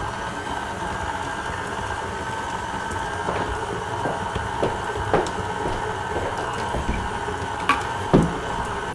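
KitchenAid Classic stand mixer running steadily, its flat beater churning soft butter and thick cheese spread in a stainless steel bowl, with a few short knocks scattered through the hum.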